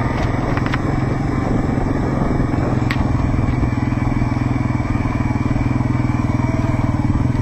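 Off-road vehicle running at a steady pace: a steady low drone with a fast, even pulse, and a sharp tick about three seconds in.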